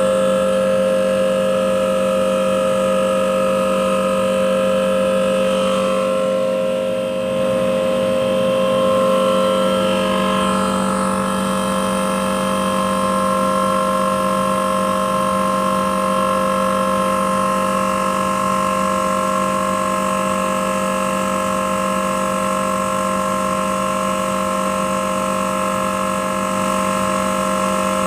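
Air-conditioner compressor running noisily: a loud, steady hum with a whine over it, the upper tones wavering briefly several seconds in.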